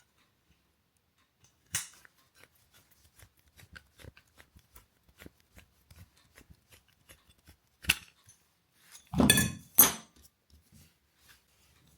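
Copper pipe and fittings being handled with hand tools: a run of small scattered metallic ticks and clicks, with a sharp click and then two louder, ringing metal clatters near the end.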